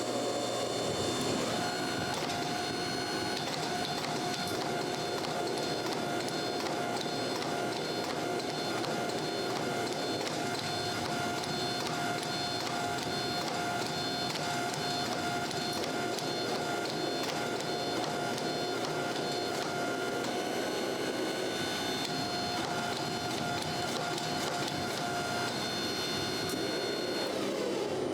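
A shop machine running steadily, with a steady whine over a rushing noise and fast fine ticking.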